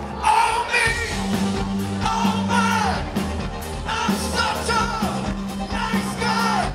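Rock band playing live: sung vocal phrases that fall away at their ends about every two seconds, over drums, a steady bass line and keyboards.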